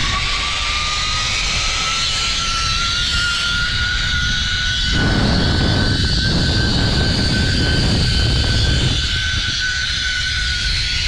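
Zipline trolley pulleys running along the steel cable: a steady whine that rises in pitch over the first couple of seconds as the trolley gathers speed, then holds and eases down slightly near the end. Wind rushes over the microphone throughout and is louder from about five to nine seconds in.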